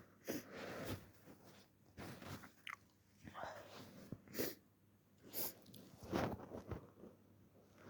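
Quiet sniffs and breaths through a runny nose, with tissue handling: several short noisy bursts about a second apart.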